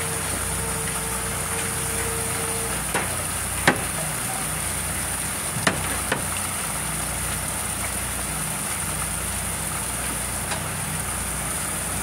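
Steady machinery hum with a constant high whine, broken by a few sharp knocks of tuna and tools against a metal fish bin, the loudest a little under four seconds in. A low steady tone stops about three seconds in.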